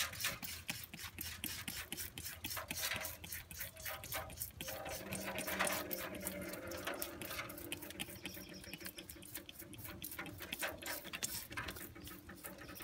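Handheld trigger spray bottle pumped over and over, each squeeze a short click and hiss of mist, in a quick, steady rhythm.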